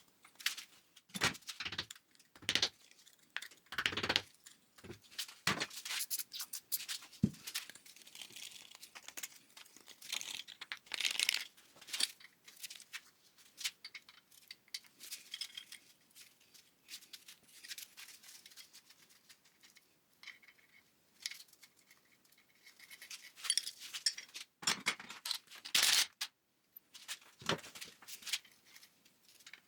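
Hand tools and loose metal parts being handled: irregular clinks, scrapes and rustles, with a sharper knock about seven seconds in and a burst of louder clatter near the end.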